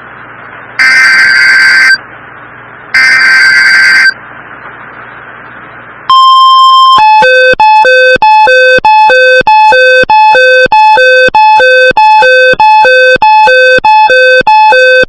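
Emergency Alert System (SAME) data bursts, harsh buzzing screeches about a second long with hiss between them, followed about six seconds in by a short steady beep and then a rapid electronic alert tone alternating between two pitches about twice a second.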